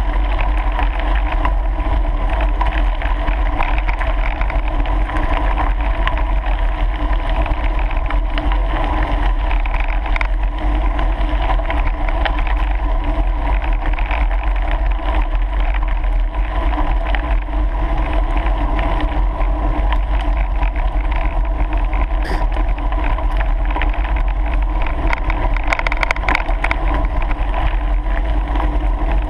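Bicycle tyres rolling over a gravel track with wind buffeting the camera microphone: a steady, loud rumble.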